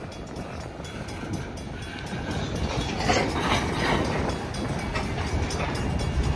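Freight train rolling by behind a pair of EMD GP38-2 diesel locomotives: a low rumble with wheel and rail noise that grows steadily louder as the train draws closer, getting rougher from about halfway through.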